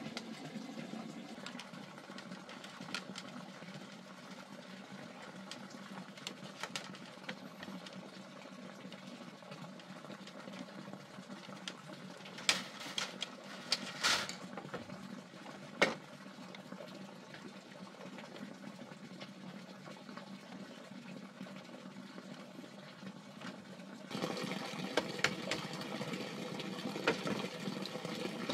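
Steady running-water noise, with scattered light knocks and clicks, and a few louder knocks around the middle.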